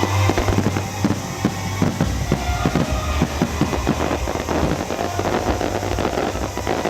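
Fireworks bursting and crackling in rapid succession over loud recorded music with a heavy bass, a fireworks display fired to music.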